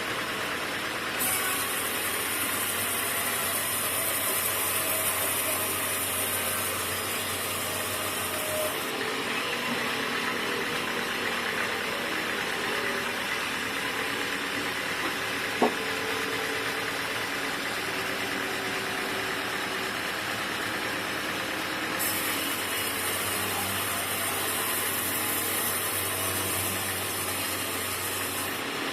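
Sawmill machinery running steadily. A high hiss with a low hum joins it twice, for about eight seconds near the start and again for about six seconds near the end, and there is a single sharp click about halfway.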